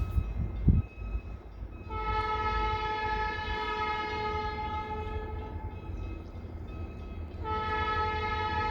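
Multi-chime air horn of an SD40-2 diesel locomotive (Escanaba & Lake Superior 503) sounding two long chord blasts over a low rumble, the first starting about two seconds in and the second coming back near the end after a short break. Two low thumps come in the first second.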